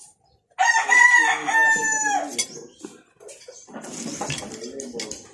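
A rooster crowing once: a long, loud call of about a second and a half that drops in pitch at the end.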